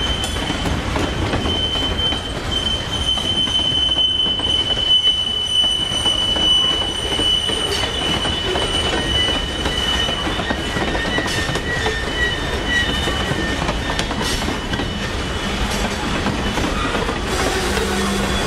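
Freight cars of a passing train (covered hoppers, tank cars, boxcars) rolling by with a steady rumble. A high steady wheel squeal runs through the first half, a lower squeal joins about ten seconds in, and a few sharp clacks of wheels over rail joints come in the second half.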